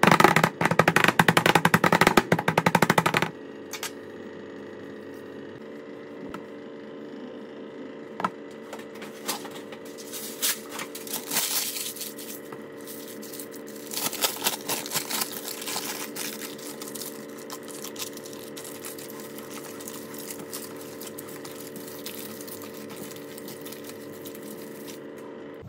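Rapid clicking of a small blade run around the fluted metal rim of a tart tin, trimming the pastry edge. It stops about three seconds in. A steady hum follows, with scattered soft clicks and rustles of hands working the pastry edge and parchment paper.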